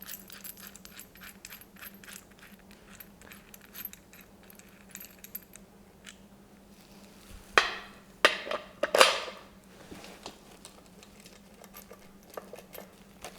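Small metal hardware clinking and ticking as a caster wheel is fastened to a car dolly: nuts, washers and bolts being handled and threaded on by hand. There are louder metal clatters about 7.5 and 9 seconds in.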